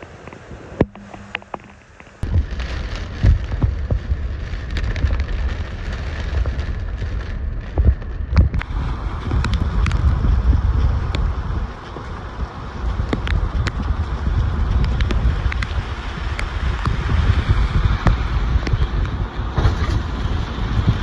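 Extreme hurricane eyewall wind gusting hard against the microphone, a loud low rumble that comes in about two seconds in, with many sharp ticks and knocks of things striking throughout.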